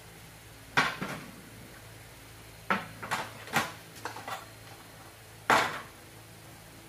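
Kitchenware knocking and clattering while food is prepared: a scattered series of sharp knocks, the loudest about a second in and again near the end.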